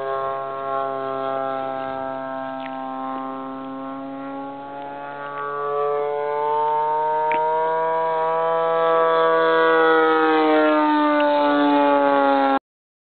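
34cc gas engine of a radio-controlled Katana model plane in flight, a steady drone whose pitch slides slowly down and then up. It grows louder about six seconds in as the plane comes closer, and cuts off suddenly near the end.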